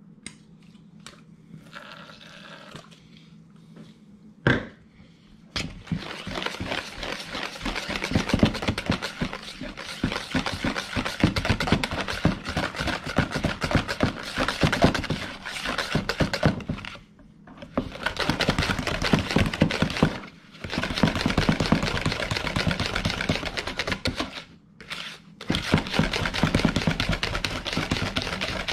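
A wire balloon whisk beating cream cheese frosting in a mixing bowl: a rapid, steady run of clicks and scrapes as the wires strike the bowl wall, stopping briefly three times. A single sharp knock comes just before the whisking starts.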